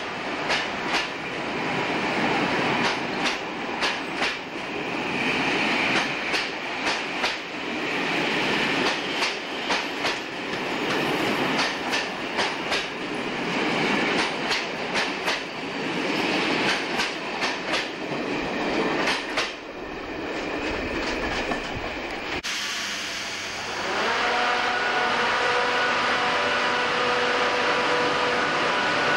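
Passenger coaches rolling past, their wheels clicking over rail joints in quick irregular pairs over a steady rumble. After a sudden cut near the end, a British Rail Class 85 AC electric locomotive stands with its equipment running: a steady hum with several high tones held together, the 'roarer' sound the class is nicknamed for.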